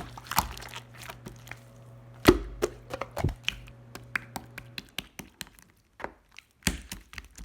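Clear slime being squished and poked by hand, giving irregular sharp clicks and pops, the loudest about two seconds in. A low steady hum underneath stops about five seconds in.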